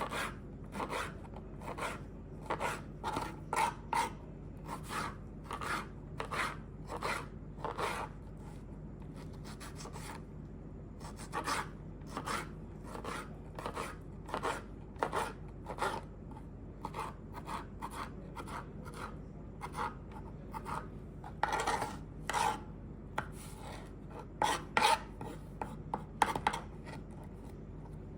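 Vegetables being prepared by hand: repeated short rasping strokes, about two a second, in runs with a pause of a few seconds partway through.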